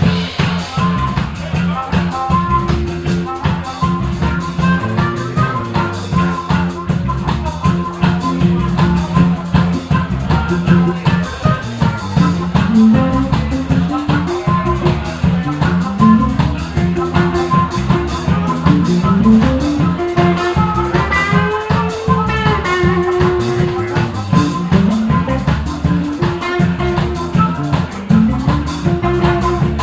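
Live band playing an instrumental passage with electric guitar and drum kit, with no singing.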